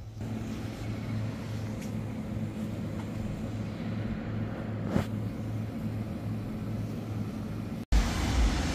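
Steady low mechanical hum under an even wash of noise, with a single click about five seconds in; the sound cuts off abruptly near the end.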